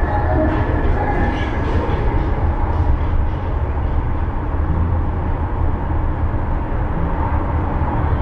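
Steady low rumble of a car driving: engine and tyre noise.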